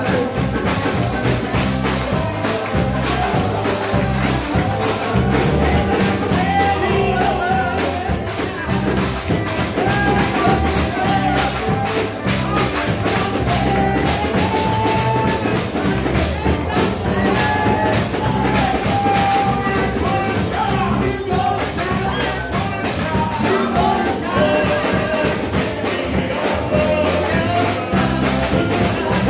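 Live church gospel music with a steady beat: voices singing over piano and drums, with a tambourine and a hand-held brass cymbal played along.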